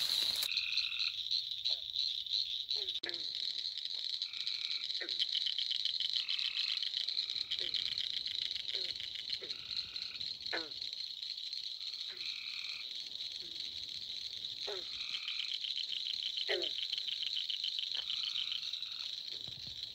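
Frogs calling at a pond at night: a steady high drone with short calls repeating every couple of seconds and pulsed trills over it.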